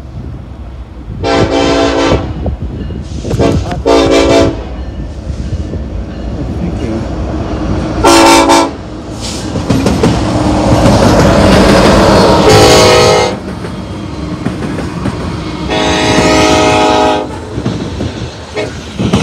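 A BNSF diesel freight locomotive's multi-note horn sounds a series of blasts as the train approaches and passes. The first and last blasts are longest, with shorter ones between. Under the horn, the locomotives' diesel engines and the wheels on the rails grow loud as the lead units go by, about ten to thirteen seconds in. The lead unit is BNSF 8501, an EMD SD70ACe.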